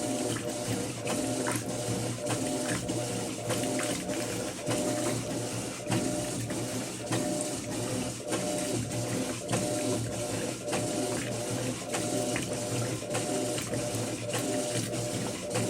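Electrolux LF10 top-loading washing machine agitating a full load of bedding in water: a steady motor hum under water churning, with many short splashes and knocks several times a second.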